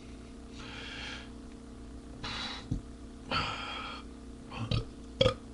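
A man breathing heavily, three long breaths in and out, followed near the end by a few short, sharp sounds.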